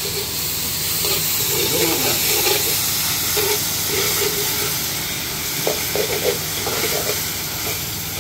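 Chopped tomatoes and onions sizzling in hot oil in a metal wok over a gas flame. A metal ladle stirs and scrapes them around the pan, with a few sharper scrapes about two-thirds of the way through.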